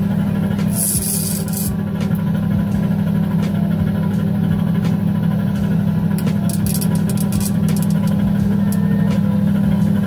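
Microwave oven running with a loud, steady hum while heating a disposable butane lighter. Scattered clicks and crackles, with a short hiss about a second in and a cluster of sharp crackles between six and eight seconds in.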